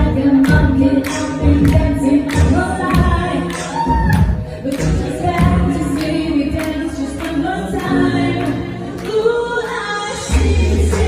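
Live band accompanying a singer in an English pop song, with a sung melody over regular drum hits and bass.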